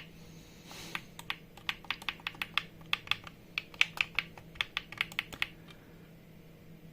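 A rapid run of small sharp clicks, about five a second for some four seconds: the on button of a Kimo MP 200 pressure meter being pressed over and over. The button still clicks while the meter fails to turn on.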